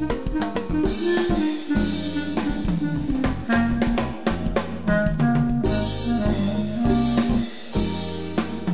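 Bb clarinet improvising a jazz samba line over a recorded play-along backing track of drum kit and bass.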